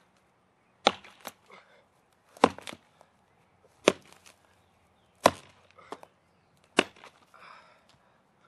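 Axe chopping into a rotten dead tree trunk: five sharp strikes about one and a half seconds apart, each followed by a couple of smaller knocks.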